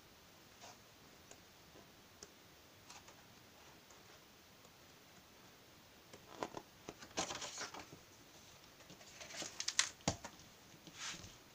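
Pages of a large photo book being turned by hand: soft paper rustles and clicks, growing busier past the middle. Near the end the book is closed and turned over, with a soft knock.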